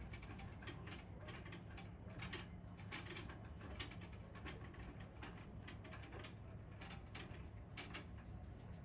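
Irregular light clicks and scratches, a kitten's paws and claws tapping on a hard surface, over a steady low hum.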